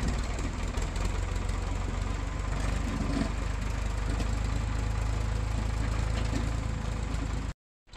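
Engine idling steadily with an even, fast pulse. The sound cuts off abruptly near the end.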